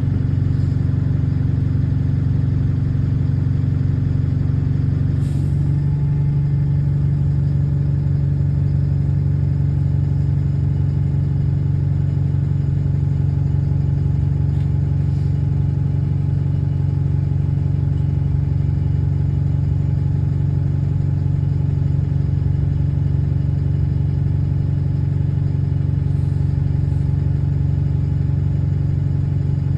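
Diesel engine of a bus running steadily, heard from inside the passenger cabin; the bus has an exhaust leak. About five seconds in there is a small click and the engine note shifts slightly, then holds steady.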